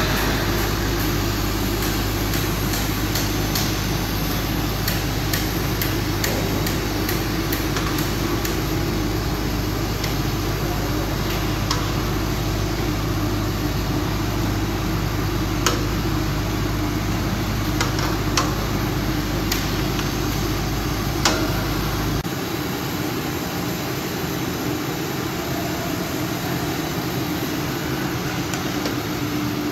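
Steady rushing noise of a huge steel karahi of grated carrots cooking over a strong fire, with scattered clinks and scrapes of a long metal spatula against the pan as the carrots are stirred. A low hum underneath stops about two-thirds of the way through.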